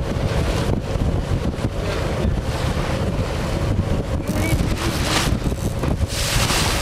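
Wind buffeting the microphone on a boat running at trolling speed, over a steady motor hum and the rush of water along the hull.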